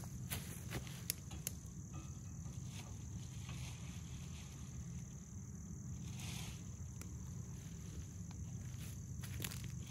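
Steady high-pitched chorus of crickets over a low steady rumble, with a few faint rustles and crunches in dry leaves.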